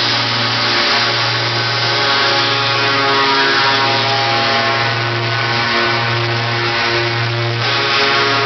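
Heavy truck diesel engines running at low speed close by, a loud, steady engine hum with a deep drone and many overtones.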